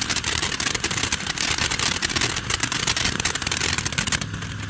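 TNT Freedom Star fountain firework burning: a dense, rapid crackle over a spraying hiss, thinning out about four seconds in.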